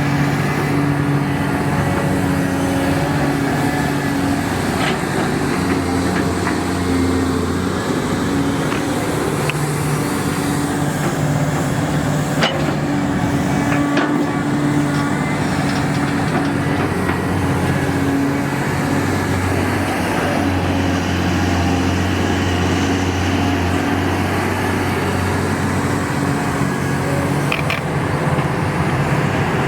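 Excavator's diesel engine running steadily, its pitch shifting at times, with a few sharp metallic clanks.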